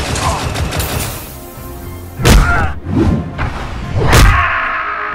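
Rapid heavy blaster fire for about the first second, then two loud booming impacts about two seconds apart, each ringing briefly, over background music.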